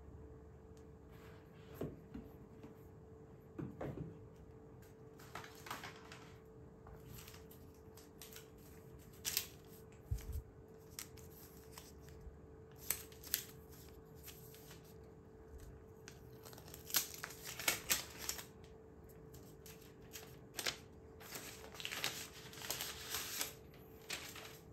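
Hands handling a phone and its packaging: scattered light clicks, taps and short rustles, coming more often in the second half, over a faint steady hum.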